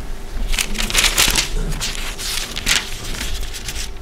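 Paper rustling as pages are handled and turned, in a series of short crinkly rustles.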